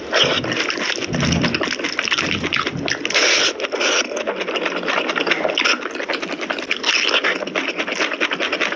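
Close-miked eating sounds of spicy mutton curry: wet, irregular chewing, smacking and slurping.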